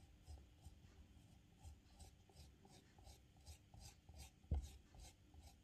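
Faint, quick strokes of a wooden knife scraping and smoothing the inside of a soft clay cylinder, a few strokes a second, with one soft knock about four and a half seconds in.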